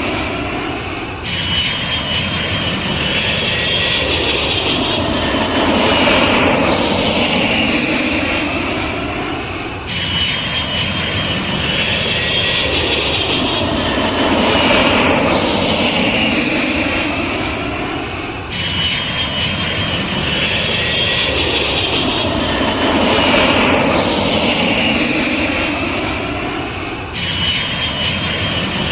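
Airplane turbine engines at takeoff power: a loud, steady engine noise with a high whine and slow sweeping tones. The same few seconds of recording repeat about every eight and a half seconds, with an abrupt jump at each join.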